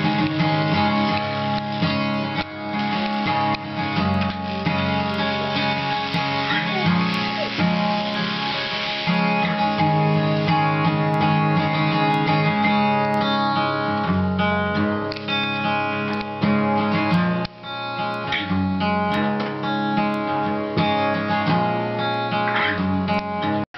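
Acoustic steel-string guitar strummed, a run of chords that change every second or two.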